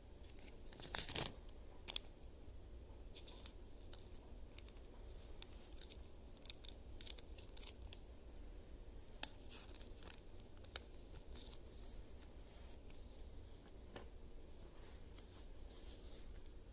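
Baseball trading cards handled and slid against one another: faint scattered clicks and light scrapes, with a short louder rustle about a second in.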